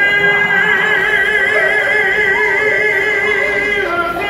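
A live blues band playing, with one long held note with vibrato carried over the band that drops and breaks off near the end.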